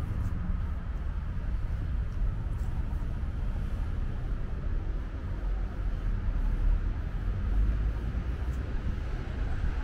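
Low, steady rumble of distant city traffic.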